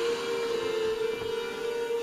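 Music from a radio broadcast playing through the small speaker of a kit-built AM/FM radio, here a long held note with steady overtones.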